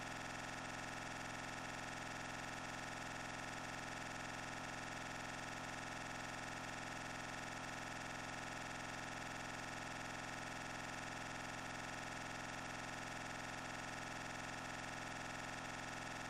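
A steady, unchanging hum made of many fixed tones at low level, with no speech.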